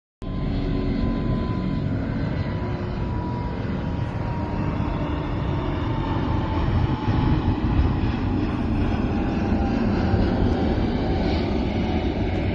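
Steady, loud engine rumble with rushing noise, a faint whine in it slowly falling in pitch.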